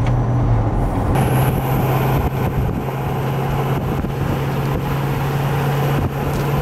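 A moving car's engine and road noise, a steady hum under a rushing noise.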